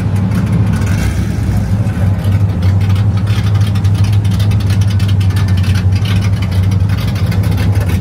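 Car engines running at low revs as a race-prepared second-generation Chevrolet Camaro and a lowered Chevrolet pickup roll slowly past: a steady, deep engine drone.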